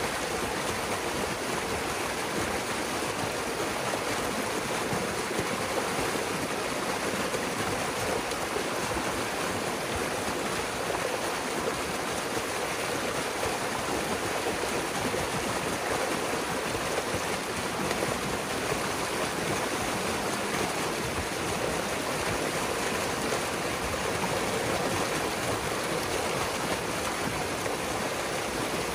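Pond water rushing steadily through a breach in a beaver dam, churning and foaming down the drainage channel as the beaver pond drains.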